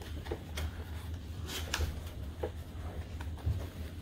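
Cardboard box being handled and its end flap pulled open: a scatter of short scrapes, rustles and taps, over a low steady hum.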